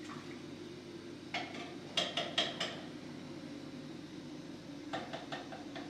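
Kitchenware being handled: a knock about a second and a half in, a quick run of four clinks near two seconds, and a few more clinks near the end, over a steady low hum.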